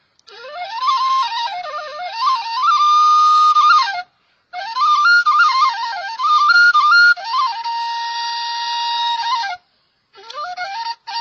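Background music: a solo melody on a flute-type wind instrument, quick ornamented runs alternating with long held notes. It breaks off briefly about four seconds in and again near ten seconds before the next phrase.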